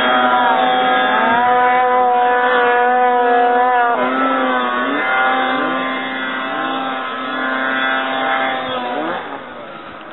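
Ski-Doo Summit 670X snowmobile's two-stroke engine running at high revs under load on a hill climb. The whine holds steady at first, then rises in pitch in several short surges as the throttle is worked, and fades near the end.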